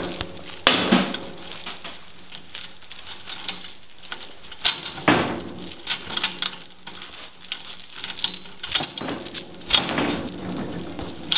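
Steel chain rattling and clanking as it is yanked again and again, jerking a piece of scrap metal against a bearing race jammed inside a rear axle tube, with several sharp metal strikes among the jingling; the race does not come loose.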